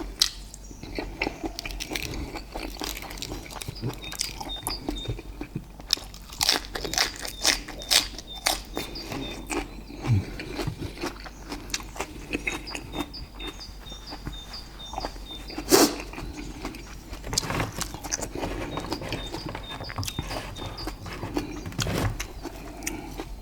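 Close-up eating sounds: chewing and mouth smacks on grilled steak and sticky rice, with frequent sharp clicks. One louder knock comes about two-thirds of the way through.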